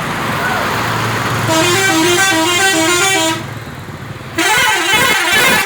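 PO Tiara Mas coach's multi-tone 'telolet' horn playing a quick stepping melody of alternating notes for about two seconds, over the running bus. After a short gap, a second burst of horn tones swoops up and down and then cuts off.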